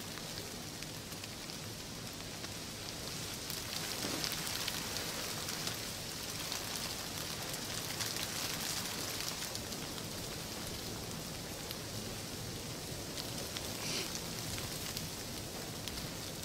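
Steady rain falling, a constant hiss with many small drop hits heard one by one, swelling slightly a few seconds in.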